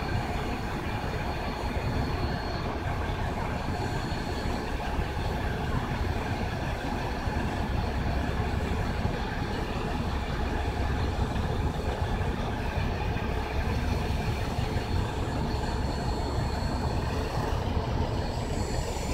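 Steady low rumbling noise with no breaks, and a faint thin high whine that comes and goes.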